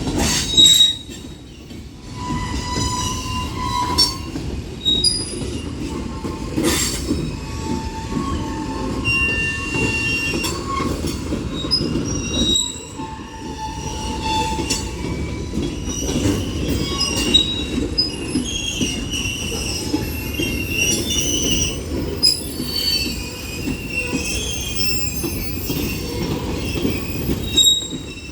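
Union Pacific manifest freight cars rolling past: a steady rumble of steel wheels on rail, with short high wheel squeals at many pitches coming and going and an occasional sharp clank.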